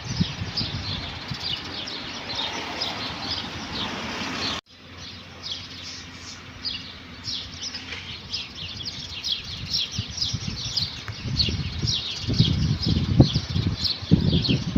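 Many small birds chirping, with short, rapid high chirps overlapping continuously. There are bursts of low rumbling underneath now and then. The sound drops out for an instant a little over four seconds in, then carries on.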